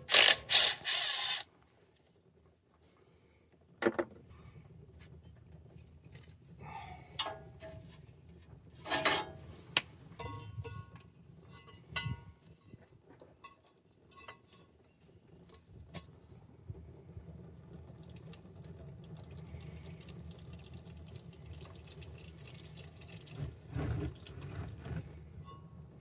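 Automatic transmission fluid dripping and trickling from the loosened transmission pan of a 1997 Ford F-250 HD, which has no drain plug, with a loud clatter at the start and a few sharp knocks as the pan is handled.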